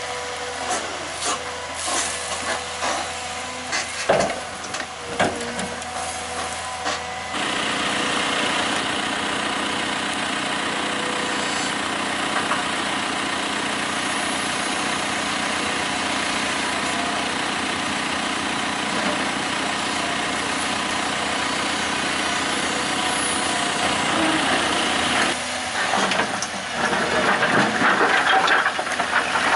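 Diesel engine of a Doosan DX225LC tracked excavator running, with scattered knocks and clatter of stone being tipped into a dumper skip over the first several seconds. The engine then settles to a steady note from about seven seconds in, and turns louder and more uneven near the end.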